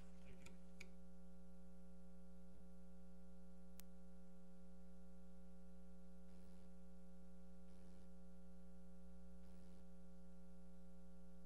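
Steady electrical mains hum with a stack of fixed overtones, low in level, and a single sharp click about four seconds in.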